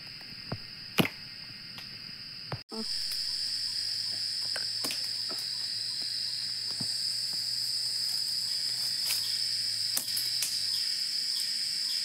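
Cicadas singing in a steady, high-pitched drone that grows louder after a brief break about two and a half seconds in. A few sharp clicks sound over it, the loudest about a second in.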